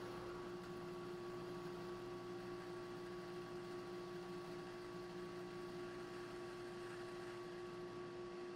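A faint, steady electrical hum carrying one clear tone, unchanging throughout.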